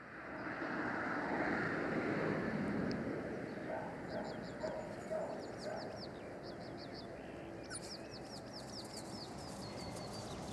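Small songbirds chirping in quick runs of short high notes, starting a few seconds in, over a steady rushing background noise that fades in at the start.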